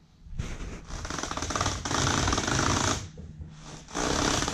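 Fox-body Mustang front tyres scrubbing on a garage floor as the steering wheel is turned, a rapid scuffing chatter in two sweeps with a pause of about a second between. There is no mechanical clicking from the Flaming River manual steering rack: a washer shimming its spring has stopped it skipping a tooth.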